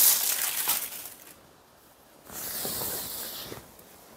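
Silk saree fabric rustling as it is handled and spread out, in two bouts: one at the start and another a little past halfway.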